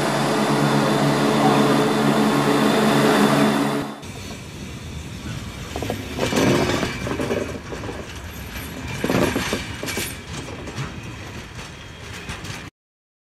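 Chiltern Railways Class 168 'Clubman' diesel multiple unit pulling into the platform, its underfloor diesel engines giving a steady hum. About four seconds in, the sound cuts abruptly to something quieter and uneven with a few swells, which stops just before the end.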